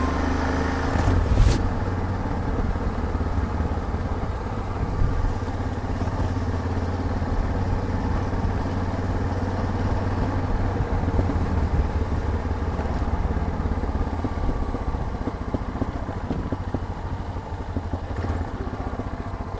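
Yamaha XT 660Z Ténéré's single-cylinder engine running steadily under way, with one sharp knock about a second and a half in.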